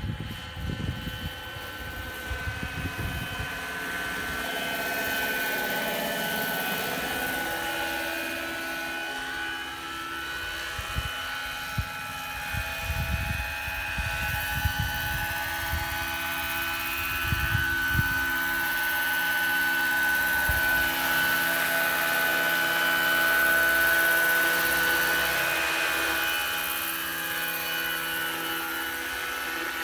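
Large-scale electric model BO 105 helicopter in flight: a steady high-pitched whine of motor and rotors, growing louder about twenty seconds in as it flies low and close.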